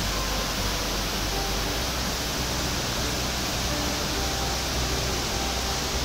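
Waterfall and swollen river rushing over rock: a steady, even rush of water with no breaks.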